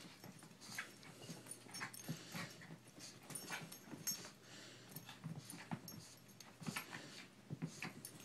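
Small dog play-fighting with a cat on a rug: irregular scuffling and soft knocks of paws and bodies, several a second, with faint noises from the dog.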